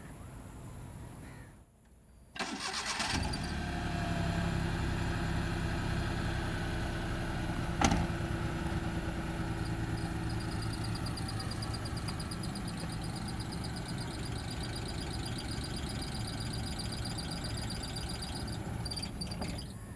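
Car engine cranked and catching about two and a half seconds in, then running steadily at idle. A single sharp click about eight seconds in.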